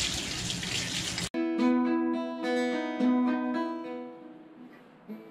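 Tap water running into a stainless steel sink, cut off abruptly about a second in. Then louder plucked-string music, a run of clear single notes that fades near the end.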